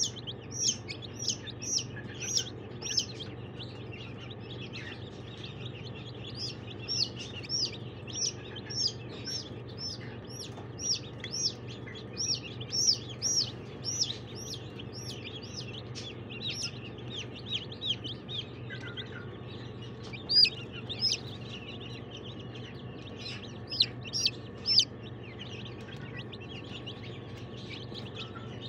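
Young chicks peeping: a run of short, high-pitched cheeps, about two a second, with brief lulls, over a steady low hum.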